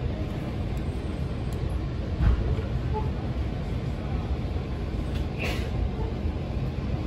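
Local electric train on the JR Chuo Main Line running, a steady low rumble with a thump about two seconds in and a brief hiss about five and a half seconds in.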